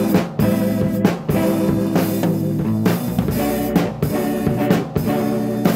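Instrumental passage of an indie rock song: a drum kit keeps a steady groove with kick and snare under bass and guitar, with no vocals.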